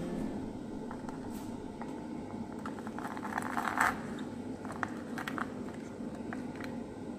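Lemon half twisted and pressed on a plastic hand juicer: scattered squishy scrapes and clicks, with a denser stretch of scraping about three to four seconds in, over a steady low hum.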